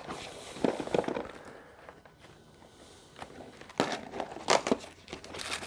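Cardboard advent calendar being handled and a small door pried open: a few knocks and scrapes about half a second in, then a cluster of sharper taps and clicks near four seconds.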